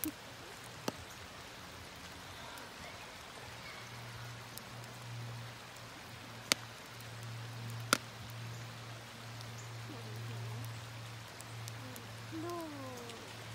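Shallow rocky creek running: a steady rushing hiss of water over stones, with a low steady hum under it from about four seconds in and a few sharp clicks.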